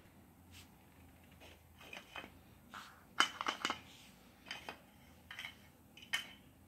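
Plastic Duplo bricks being handled and knocked against a hard floor: faint, irregular light taps and clicks, about a dozen, closest together a little past three seconds in.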